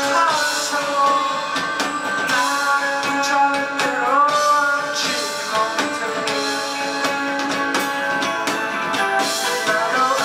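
Live indie rock band playing a song: a singer's voice over strummed guitars and a drum kit with regular cymbal hits.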